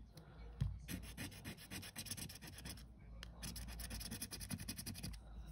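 Scratchcard being scratched with a handheld scratcher tool: quick back-and-forth scraping strokes rubbing off the silver coating, in two runs with a short pause between.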